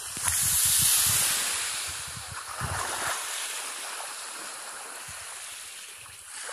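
Sea wave breaking and washing up the shore, loudest about a second in and then slowly fading. For the first three seconds, wind buffets the microphone.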